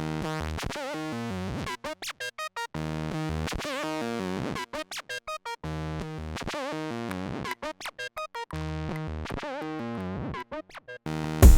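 Synthesizer intro music: a short phrase of notes that repeats about every three seconds, each time followed by a run of rapid stuttering chopped notes.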